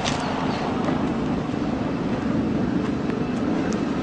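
Steady street traffic noise, a continuous rumble of passing cars.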